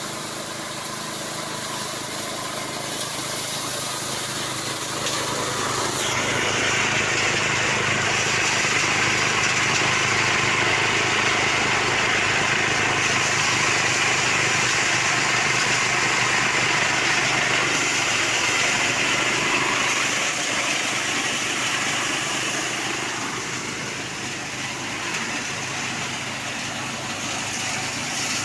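Homemade paddy winnowing machine (palarai padi) running with a steady motor hum. About six seconds in, a louder rushing hiss joins it and eases off again a few seconds before the end.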